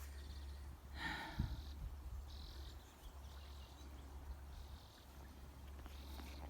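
Faint outdoor ambience: a steady low rumble, a brief rustle about a second in, and a few faint high chirps.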